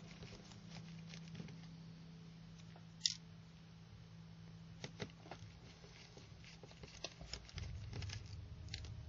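Faint clicks and ticks of a small screwdriver working the screws of a Sony Ericsson WT19i's plastic back frame, with one sharper click about three seconds in. A steady low hum runs underneath.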